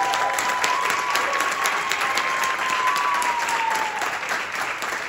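Audience applause: dense, steady clapping from a full hall. A single long high tone rides over it until about four seconds in.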